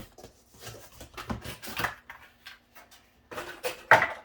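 Cardboard and plastic packaging handled as PC case parts come out of their box: irregular rustles, clicks and light knocks, the loudest just before the end.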